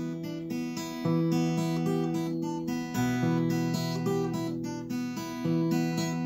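Steel-string acoustic guitar playing chords in E minor with the fingers, a new chord struck about every one to two seconds and left to ring.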